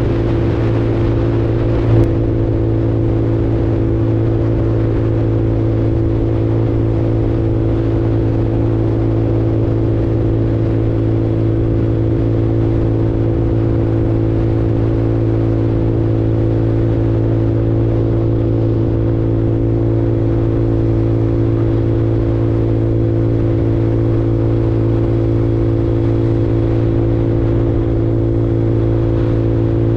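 A 150cc Super Hornet automatic motorcycle's engine running at a steady cruising speed, its drone unchanging throughout. There is a single short click about two seconds in.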